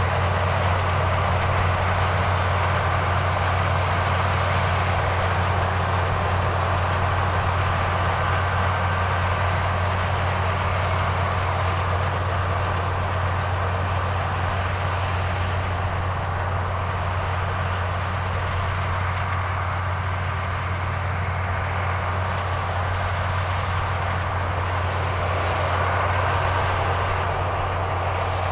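International Harvester 1460 Axial-Flow combine running steadily in corn, its diesel engine and machinery making a constant low drone.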